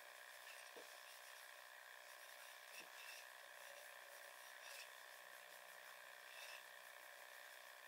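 Near silence: a steady faint hiss, with a few faint light knocks from small wooden joint pieces being picked up and set down.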